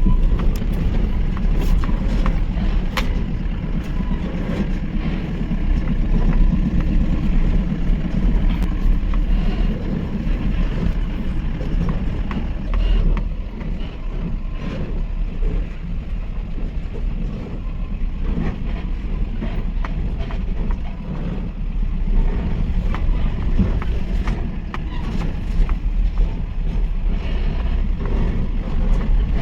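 Mahindra pickup's diesel engine running under load as the vehicle drives over rough ground, a steady low rumble with occasional sharp knocks and rattles.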